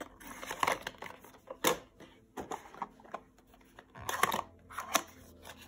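Cardboard being handled: a token sheet slid into a small cardboard box and the tuck flap of another cardboard box worked open, with rustling scrapes and a few sharp taps, the sharpest under two seconds in and again near the end.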